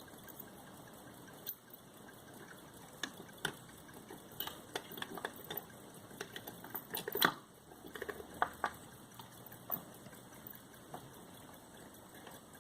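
Antique pocket watches being handled: light, irregular clicks and taps, busiest in the middle with one louder click, over a faint steady hiss.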